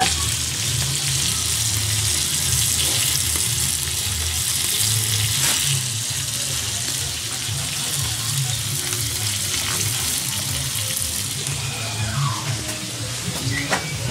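Wood fire burning under a clay comal: a steady hiss with a few faint crackles, over an irregular low rumble on the microphone.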